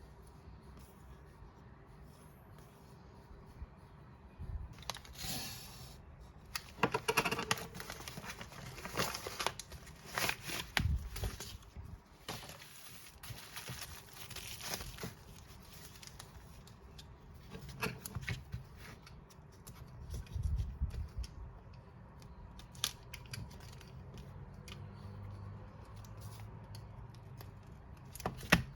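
Packaging being torn and crinkled by hand, in a string of rustling stretches, followed by scattered clicks and taps.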